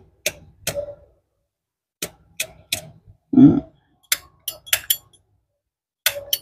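Vintage Zippo lighter being handled: sharp metallic clicks and clinks in small clusters as the metal case, lid and insert knock together, with a short vocal sound about halfway through.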